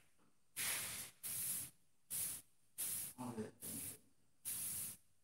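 A person breathing hard and fast close to the microphone, a rough breath about every second with silence between, and a faint murmured sound about three seconds in.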